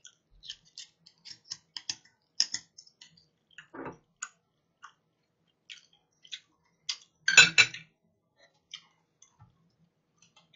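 Light clicks and taps of metal chopsticks against a raw oyster's shell as sauce is dabbed onto it, with a louder clatter about seven seconds in.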